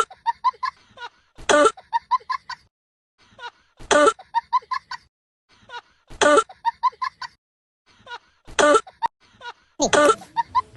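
A man coughing in repeated fits, about every two seconds: each a hard cough followed by a run of short hacking coughs.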